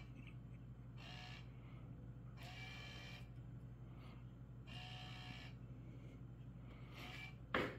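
Small motor of an automatic laser cat toy whirring in four short bursts, about every two seconds, as it swings the laser dot, over a steady low hum. A sharp click near the end is the loudest sound.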